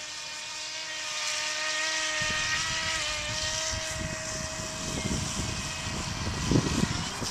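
The LRP Deep Blue One RC speedboat's battery-powered electric motor whining as it runs on the water, its pitch rising slightly and then holding steady before fading near the end. A rough low rumble builds from about two seconds in.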